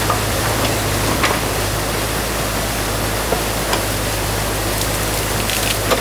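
Water rushing steadily through a breached beaver dam over the constant low drone of an excavator's engine, with a few light knocks.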